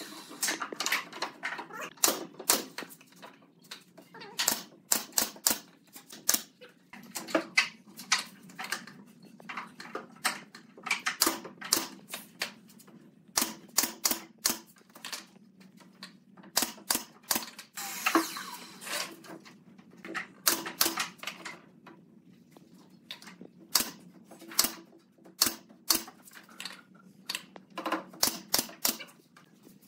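Pneumatic nail gun firing nails into pine boards: sharp cracking shots, some single and some in quick runs of several, at irregular spacing.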